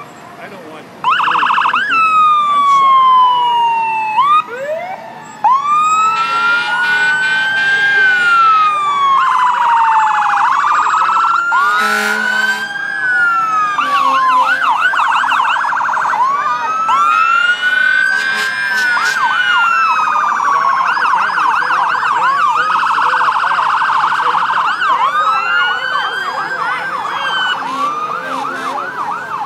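Several fire-engine sirens sounding at once as the trucks pass: overlapping wails rising and falling in pitch, mixed with fast yelping warbles, loud from about a second in.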